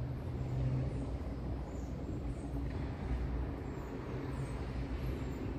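Steady low outdoor background rumble, with a few faint short high chirps scattered through it.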